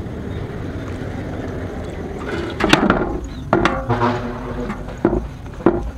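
A wet, scalded duck is lifted from hot water in a wok and dropped into an aluminium basin: water sloshing and dripping, then several sharp splashes and knocks against the metal in the second half, some ringing briefly.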